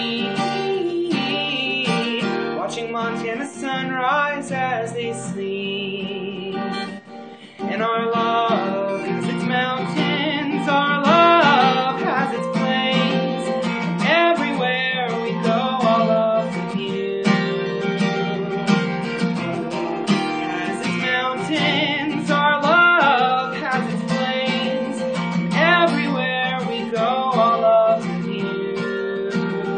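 Acoustic guitar strummed in steady chords while a man sings along, with a short break in the playing about seven seconds in.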